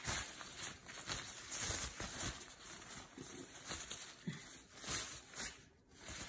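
Crinkled teal wrapping rustling and crumpling as a hand lifts and bunches it, in irregular bursts.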